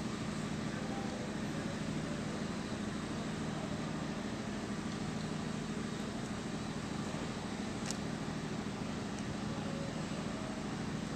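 A steady low machine hum over a faint hiss, unchanging throughout, with one faint tick about eight seconds in.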